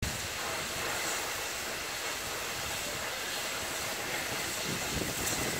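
Steady hiss of steam escaping from the open cylinder drain cocks of BR Standard Class 7 steam locomotive 70000 'Britannia'.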